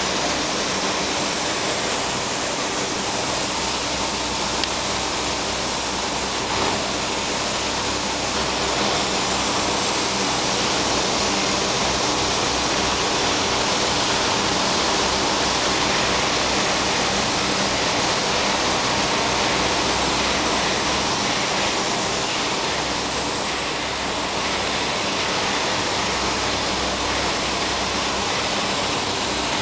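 Paper-making machine running at its reel end, where the paper web is wound onto a large roll: a steady, even noise from the machine's rollers and drives, with a faint low hum underneath and no change throughout.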